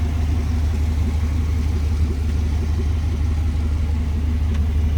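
A 1996 GMC Yukon's 5.7-litre Vortec V8 idles with a steady, low drone.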